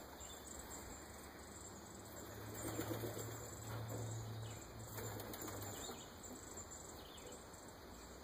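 A flock of domestic pigeons flying overhead, their wingbeats a soft rushing that swells about two and a half seconds in and again near five seconds. A faint low hum runs under it for a few seconds in the middle.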